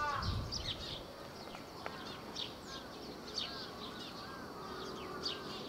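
Birds calling: a series of louder arched calls right at the start, then many short, high chirps repeated throughout, with a few softer whistled notes in the middle.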